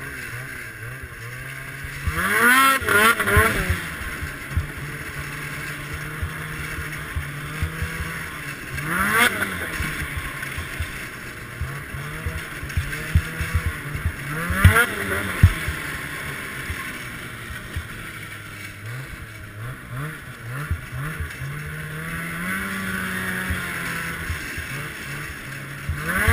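Ski-Doo Summit X snowmobile's two-stroke engine running under way, its pitch stepping up and down with the throttle. It revs up sharply three times: the loudest burst about two seconds in, then around nine seconds, then around fifteen.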